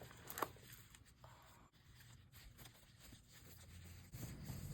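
Faint rustling and crackling of paper or packaging being handled, with a couple of short sharper crackles about half a second in.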